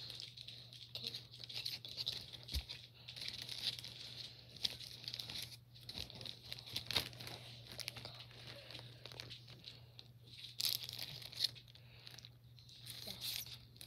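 Thin plastic bag being handled, crinkling and rustling in irregular crackly bursts.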